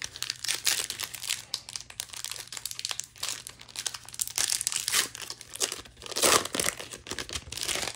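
Crinkling and tearing of a Magic: The Gathering booster pack's foil wrapper as it is ripped open and handled, a dense irregular crackle with the loudest burst about six seconds in.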